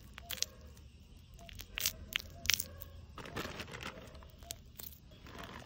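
Beeswax honeycomb crushed and squeezed in a bare hand, the wax cells breaking as honey is pressed out. There are a few sharp crackles in the first half and a longer crackling stretch about three seconds in.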